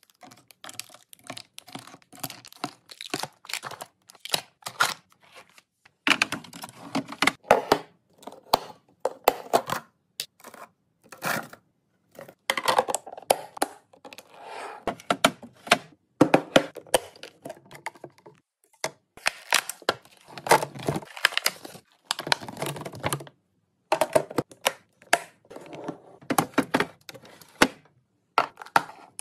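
Restocking a mini fridge: plastic packaging crinkling and tearing, with quick clicks and clinks of cans, bottles and containers being handled and set down, broken by a few sudden brief silences.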